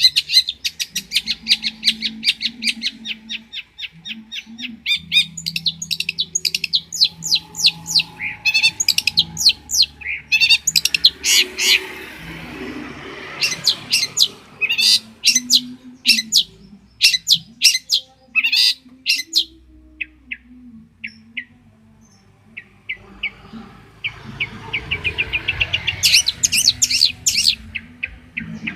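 Long-tailed shrike (cendet) singing. Rapid trills of fast repeated high notes near the start and again near the end alternate with louder separate chirps in between.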